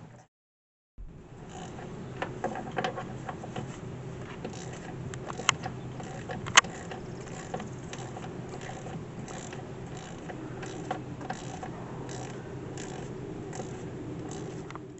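Hand tools working on a jet ski's metal parts: scattered clicks and clinks, with a couple of sharper knocks near the middle, over a steady low hum.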